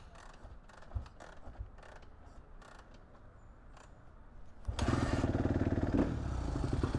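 Light clicks and handling noises. About two-thirds of the way in, a Kawasaki ZX-6R stunt-build motorcycle's inline-four engine starts with a sudden burst and settles into a steady, evenly pulsing idle.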